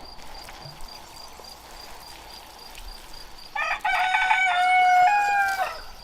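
A rooster crowing once, a single drawn-out crow of about two seconds that starts a little past the middle.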